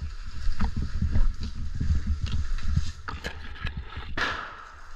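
Footsteps through dry leaf litter, with low thuds from the walker's body-mounted camera bouncing, a few small crackling clicks, and a short brushing swish about four seconds in.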